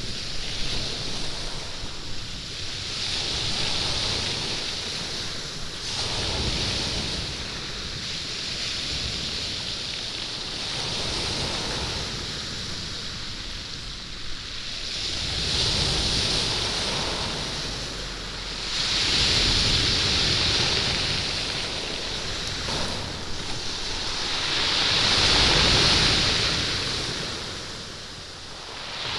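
Waves washing up a pebble beach, the stones rattling and rolling in the surf as each wave surges in and draws back, in slow swells every few seconds, the loudest near the end.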